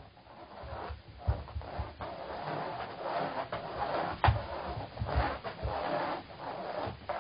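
Cornish Rex cat's paws scrabbling and thudding on carpet as it chases and pounces on a wand toy, with the toy rustling over the carpet; a sharp knock about four seconds in.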